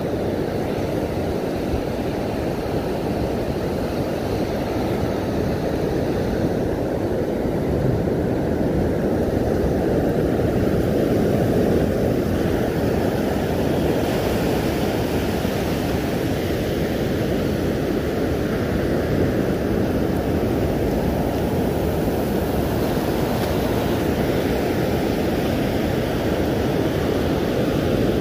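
Steady wind noise on the microphone over the wash of surf on a sand beach.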